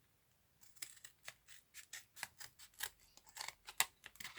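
Packaging being opened by hand: a quick, irregular series of sharp snips and crackles, starting about half a second in.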